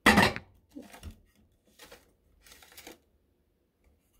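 Craft paper being handled and rustled in short, irregular bursts, the first one loudest, dying away about three seconds in.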